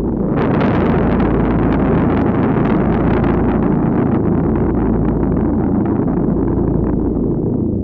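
Ambient noise soundscape: a steady deep rumble with a hissing wash laid over it that swells in about half a second in and thins out near the end, sprinkled with faint crackles.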